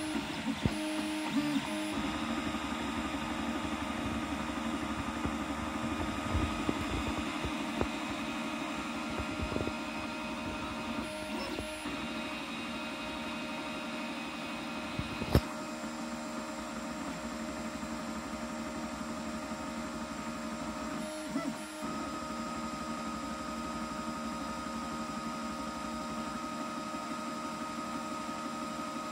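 Geeetech FDM 3D printer running a print: a steady mechanical whine of several held tones that change pitch every several seconds as the head's moves change. There is one sharp click about halfway through.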